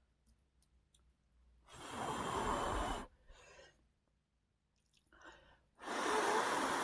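A person's loud breaths close to the microphone while eating: two long rushes of air, one about two seconds in and one near the end, each about a second long, with softer, shorter ones between.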